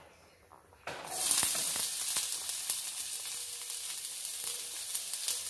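Chopped onions dropped into hot oil on a tawa (flat iron griddle), starting to sizzle suddenly about a second in and then frying with a steady hiss and small crackles.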